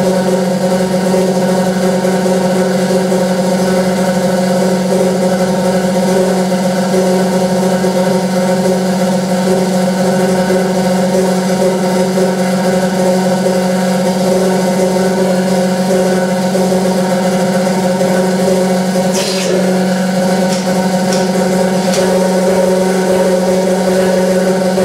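Battioni Pagani MEC-series rotary vane vacuum pump running with a steady hum. A few sharp knocks come about three-quarters of the way through.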